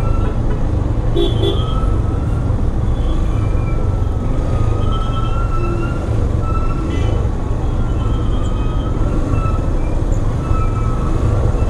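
Motorcycle riding in dense city traffic: a steady rumble of engine and road, with short horn toots from the vehicles around it now and then.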